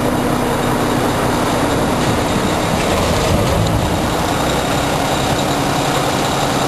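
A steel roll-off container being loaded with debris by heavy machinery: a loud, steady rumbling and grinding, with metal scraping.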